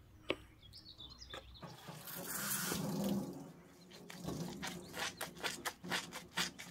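A wet, soapy cellulose sponge squeezed and worked in the hand over a stainless steel sink, squelching and dripping, with quick squishes about four a second in the second half. Near the start a trigger spray bottle sprays onto the sponge with a sharp click.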